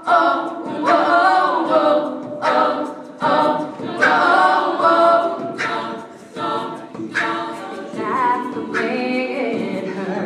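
All-female a cappella group singing in close harmony, voices only with no instruments, in short rhythmic phrases.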